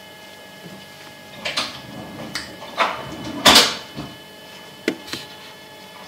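Steady hum of a Siemens KG49 fridge running, heard as several held tones. Over it come a handful of knocks and rustles from about a second and a half in, the loudest a little past halfway.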